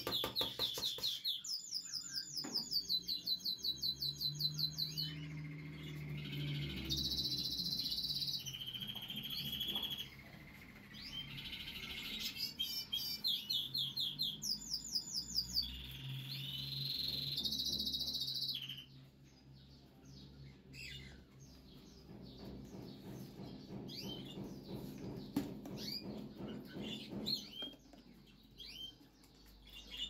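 Caged pet birds chirping and calling, with rapid high trills and whistled notes. The calls are dense for most of the time and thin out to scattered chirps about two-thirds of the way through.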